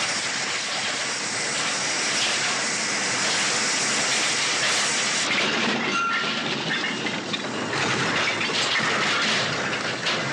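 Train derailment sound effect: a dense, continuous rumbling clatter of a train's cars running off the rails, with a brief thin metallic squeal about six seconds in.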